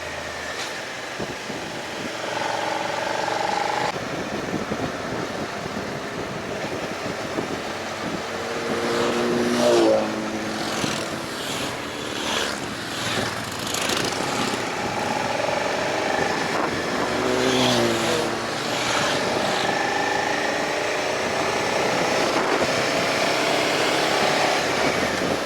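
Motorcycle engine running under way, with wind noise on the microphone; the engine pitch climbs about a third of the way in and drops again a little past the middle.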